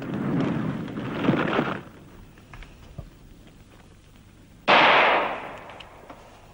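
Battle sound effects: a loud crackling noise that stops about two seconds in, a few faint knocks, then a sudden loud explosion about four and a half seconds in that dies away over a second or so.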